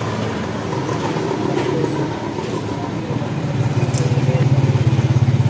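A motor vehicle's engine running, a steady low hum that grows louder about three and a half seconds in, with a rapid, even pulse.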